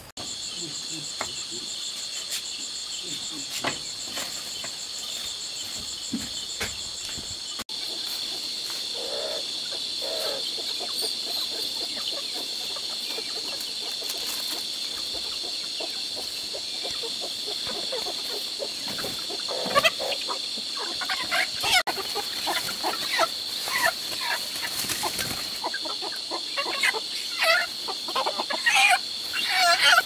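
Chickens clucking, sparse at first, then frequent and louder in the last third, over a steady high-pitched insect drone. A fast pulsing insect trill sits above the drone for the first seven or eight seconds.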